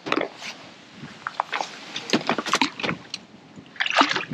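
Angler's clothing and fishing tackle being handled: a quick, irregular run of short rustles, clicks and knocks, busiest in the middle and again near the end.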